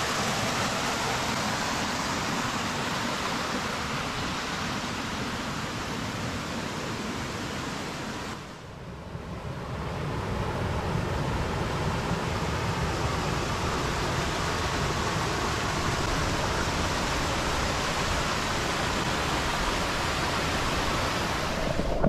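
Steady rushing and splashing of a small mountain-stream waterfall pouring over rocks into a pool. It drops away briefly about eight seconds in, then comes back as strong.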